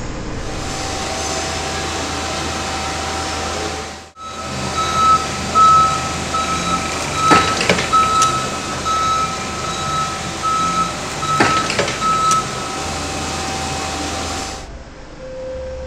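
Forklift running with its reversing alarm beeping at a steady rate, starting about four seconds in. Two sharp knocks come during the beeping as the truck bumps the flexible bollard guard. All of it drops away shortly before the end.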